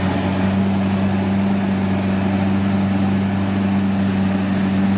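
Diesel engine of a combine harvester running steadily at constant speed, a low, even drone.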